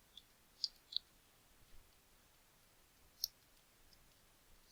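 A few faint, sharp clicks of a computer mouse and keys while a web form is filled in: three in the first second and another about three seconds in.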